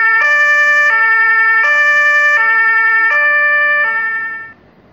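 Ambulance siren sounding a two-tone hi-lo pattern, switching between a higher and a lower note about every three-quarters of a second, then fading out near the end.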